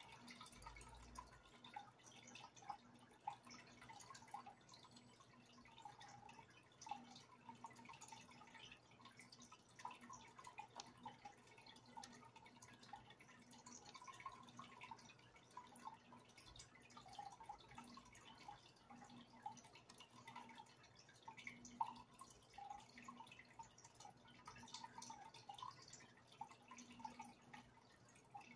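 Faint dripping and trickling water in a goldfish aquarium: many small irregular drips and plinks over a low steady hum.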